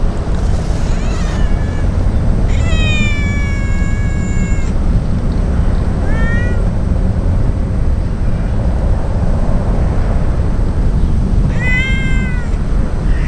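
A brown tabby-and-white cat meowing in a cute voice, four separate times: a faint call about a second in, a long drawn-out meow of about two seconds, a short one around six seconds, and another near the end.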